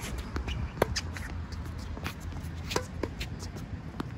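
Tennis rally on a hard court: a few sharp pops of racket strings striking the ball and the ball bouncing, the strongest about a second in, with light scuffing footsteps between them.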